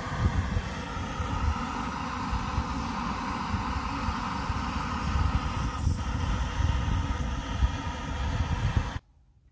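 Backpacking gas canister stove burning under a pot of water, a steady roaring hiss as the water heats for coffee. It cuts off suddenly near the end.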